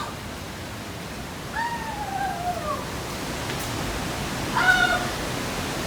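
Steady roar of a large waterfall. Two short, wavering voice-like calls sound over it: one falling in pitch about a second and a half in, and a louder one about three-quarters of the way through.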